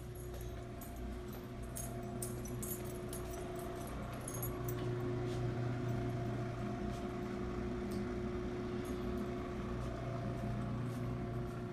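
Steady electrical hum of refrigerated drink vending machines, swelling as they are passed about halfway through, with light scattered clicks and ticks over it.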